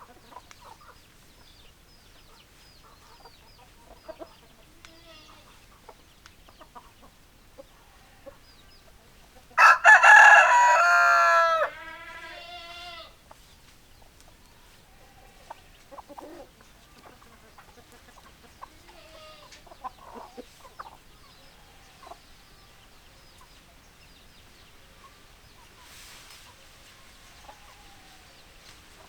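A rooster crows once, loud and about three seconds long, around ten seconds in. Hens cluck softly on and off throughout.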